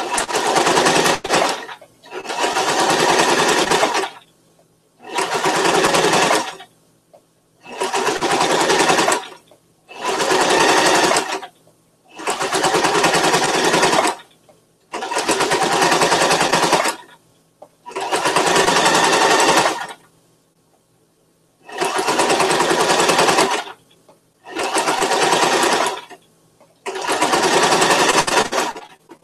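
Electric household sewing machine stitching fabric in short runs: about eleven bursts of one to two seconds each, with brief pauses between them as the work is repositioned.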